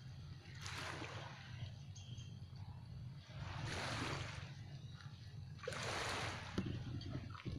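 Small waves washing onto a pebbly shore, three gentle swells a couple of seconds apart, over a steady low rumble.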